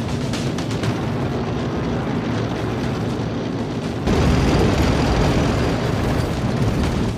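War-film battle sound effects: a steady low rumble under a faint score, then about four seconds in a sudden, louder rumbling roar that holds on.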